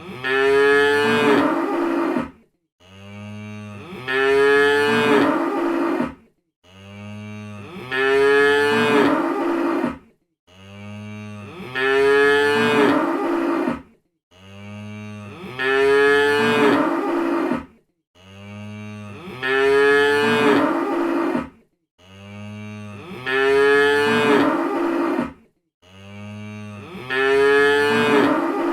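Cows mooing: a low, quieter moo followed at once by a loud, longer moo, the pair repeating identically about every four seconds, seven times over.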